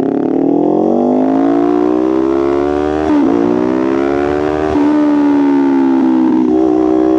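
Kawasaki Ninja 500 parallel-twin engine under way, pulling up in pitch as the bike accelerates, dropping sharply about three seconds in at a gear change, then climbing again and settling to a steady pitch after another change near five seconds.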